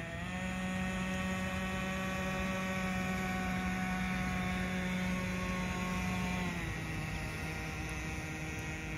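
Nitro RC boat's small two-stroke glow engine running at speed with a steady high whine. Its pitch steps up slightly just after the start, holds, then drops about six and a half seconds in as the revs come down.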